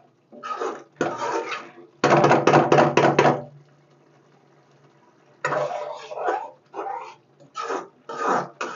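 Metal spoon stirring thick masala gravy in a metal kadai, scraping and slopping against the pan in quick repeated strokes, with a pause of about two seconds midway before the stirring resumes.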